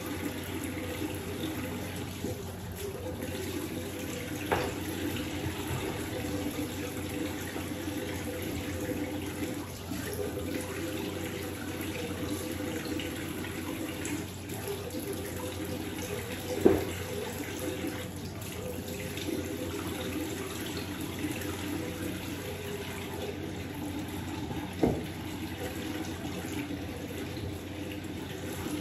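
Bathroom sink tap running steadily, water splashing into the basin. Three brief knocks break in, the loudest a little past halfway.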